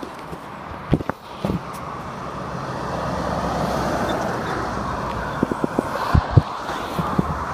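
Road traffic passing below on a dual carriageway, a lorry's tyres and engine swelling to a peak about halfway through and then easing. Several short sharp knocks come about a second in and again near the end.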